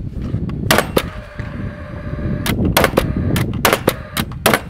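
Paslode XP cordless fuel-cell framing nailer firing nails into lumber: a rapid series of sharp combustion shots in quick clusters, each one the fuel charge slamming the piston down to drive a nail.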